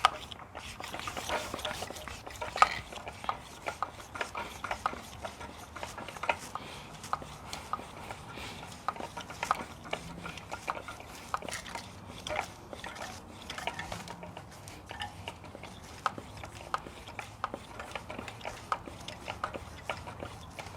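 Hand bicycle pump inflating a small bike tire's inner tube: repeated strokes, each with a click, about one to two a second, with air hissing between them.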